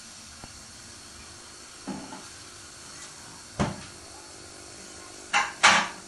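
Samsung WW80J5555FWEU front-loading washing machine drum turning in a Delicates 40°C wash: a steady hiss with a few short knocks and sloshes, the loudest two close together near the end.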